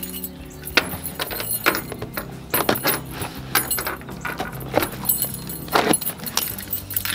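Keys jangling on a keyring while a small cardboard box is handled, with a run of irregular clicks, rustles and scrapes.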